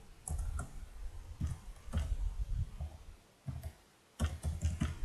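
Computer keyboard keystrokes: short clicks with dull low thuds, coming in irregular runs, with a brief pause a little before the end.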